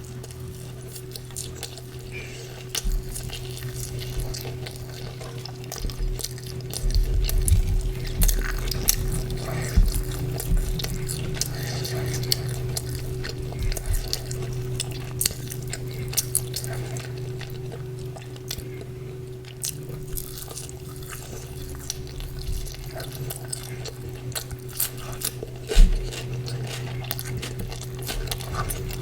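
Close-miked eating sounds of chicken curry and porota: chewing and mouth sounds with many short clicks and a few louder knocks against the plate, over a steady low hum.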